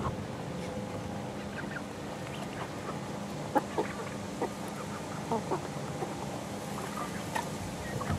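Young chickens, about eleven weeks old, making short clucks and chirps. The calls are separate and scattered throughout, with a few louder ones around the middle.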